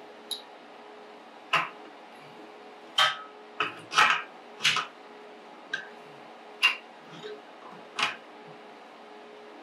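Sharp metal clicks of a blue-handled wrench being reset on a threaded pipe fitting, taking small bites to tighten it, about nine clicks at uneven spacing. Beneath them runs a faint steady hum.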